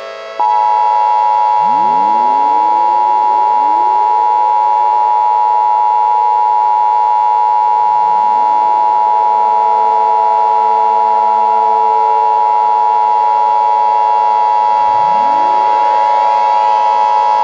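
Emergency Alert System attention signal: a loud, steady two-tone alarm held without a break, starting about half a second in. Civil defense siren wind-ups rise over it several times.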